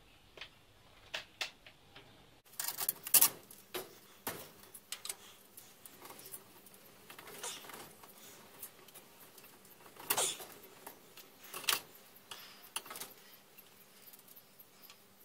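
Metal clinks and clicks of spanners and steel parts as a go-kart's front spindle assembly is unbolted and taken apart: scattered taps and knocks, the loudest about three seconds in and again around ten and twelve seconds.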